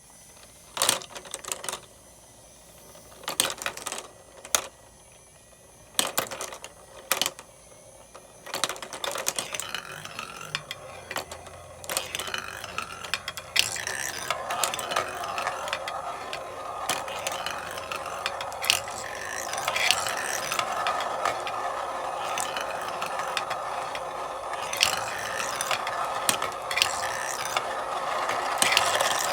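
Marbles on a marble run: separate sharp clacks at first, then from about halfway a continuous rolling rattle with many clacks as more marbles run along the track.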